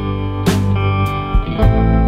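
Background instrumental music, a guitar tune over a bass line with a steady beat.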